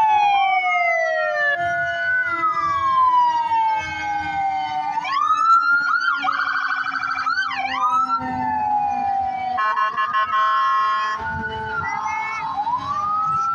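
Several fire truck sirens sounding at once, overlapping slow rising and falling wails, with a fast yelp about six seconds in and a short steady blast about ten seconds in.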